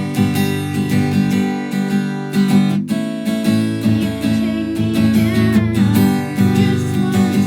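A song playing, led by strummed acoustic guitar.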